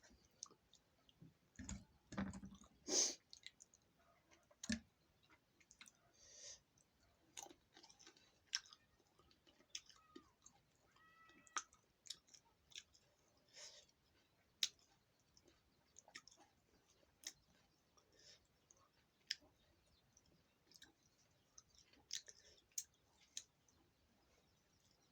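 Faint, scattered clicks and knocks at irregular intervals, one louder knock about three seconds in, and a short faint pitched sound about eleven seconds in.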